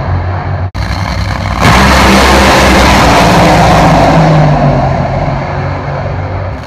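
Drag racing cars running hard down the strip: a very loud, dense engine noise with a deep rumble underneath. The sound drops out for an instant just under a second in, then comes back louder at about a second and a half.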